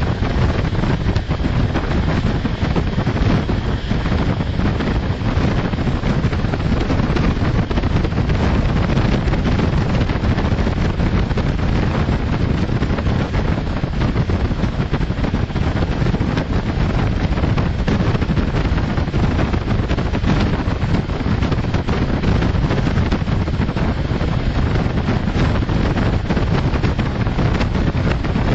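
Steady rush of a locomotive-hauled intercity passenger train running at speed, with wind buffeting the microphone over the low rumble of the wheels on the rails.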